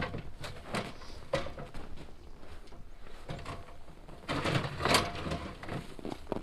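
Folded metal loading ramp being lifted and shoved into a pickup bed: a few scattered knocks, then a longer scraping clatter about four seconds in, as it slides onto the bed, ending in a sharp knock.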